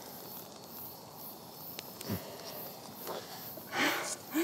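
Quiet outdoor woodland ambience with a brief soft rushing sound near the end.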